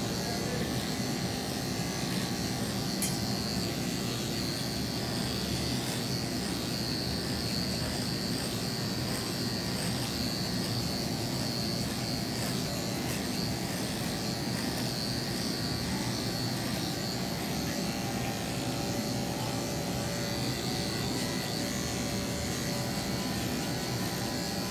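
Corded electric dog-grooming clipper running steadily while it shaves through a dog's thick white coat. It makes a continuous hum with a thin high whine over it.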